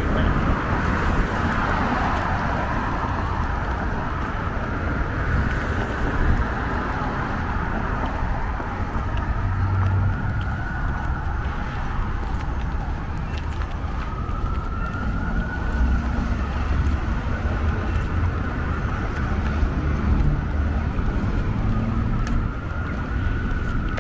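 Street traffic running past, with a faint emergency siren wailing slowly up and down behind it.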